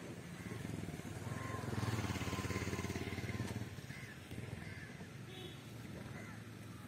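Low hum of a passing motor vehicle's engine in the background, swelling about two seconds in and then fading, with faint high bird chirps over it.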